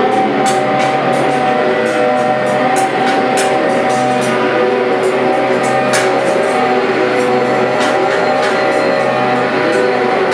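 Live noise music: a loud, unbroken wall of sound made of several held droning tones over a steady low hum, with irregular sharp clicks and crackles scattered through it. One click about six seconds in stands out.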